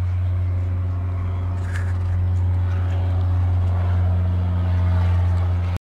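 A steady low mechanical hum, motor-like, with a strong deep drone and an even stack of fainter steady tones above it. It cuts off suddenly near the end.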